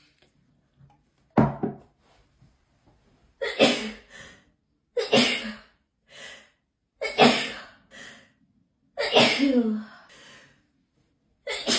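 A person sneezing over and over in a hay fever sneezing fit, a sneeze roughly every two seconds, each with a short breathy after-sound.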